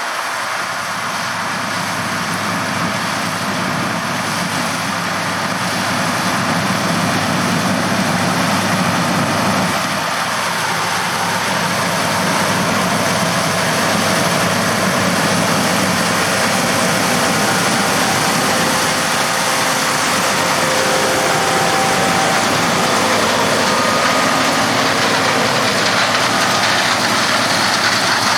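Heavy diesel farm machinery running steadily in a harvest field, a constant mechanical drone that slowly grows louder.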